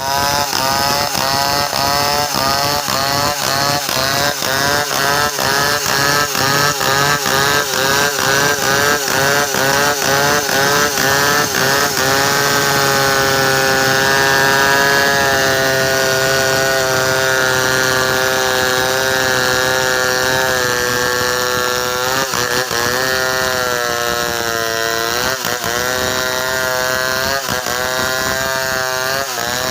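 Two-stroke chainsaw engine running at high revs. For the first twelve seconds or so its pitch wavers up and down about twice a second, then it holds a steady high note, with a few brief sharp drops in pitch near the end.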